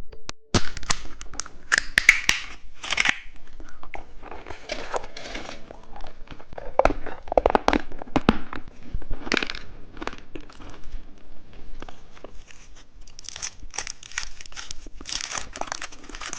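Plastic candy wrappers crinkling and tearing as a packet is opened, with scattered sharp clicks and rustles of the packaging being handled.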